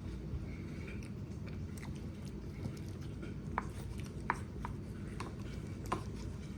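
Close-up chewing with a few short sharp clicks in the second half, over a steady low hum from a running hot water heater.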